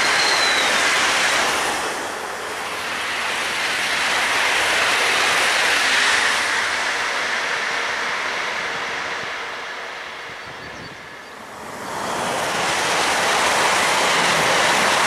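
DB Regio passenger trains passing at speed on the main line: a steady rushing of wheels on rails. It eases about two seconds in, swells again, fades to its lowest about eleven seconds in, then rises as another red regional train runs close past.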